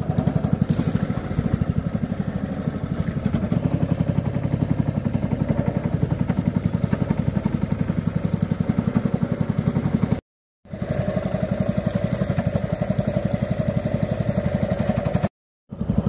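Small boat's motor running steadily under way, a fast even pulsing engine note. The sound cuts out abruptly for a moment twice, about ten seconds in and near the end.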